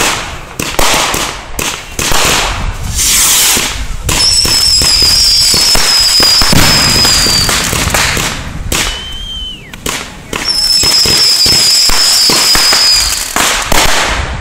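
Aerial fireworks going off: a quick run of sharp bangs, then two longer stretches of dense steady noise, each with a high whistle running over it. About nine seconds in, a short whistle sounds and dips in pitch at its end.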